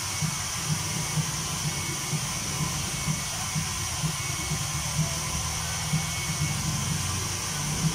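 Handheld hair dryer blowing steadily over a fresh screen print to dry the ink, with a low hum and a faint pulse about twice a second.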